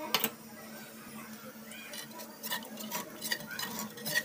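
A metal ladle clinking and scraping against a cooking pot as rice is stirred into simmering masala liquid for biryani. There is one sharp click about a quarter second in, then repeated clinks and knocks from about halfway.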